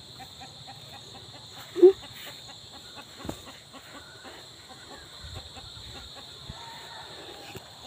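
A chicken gives a single short cluck about two seconds in, over a steady high-pitched insect buzz.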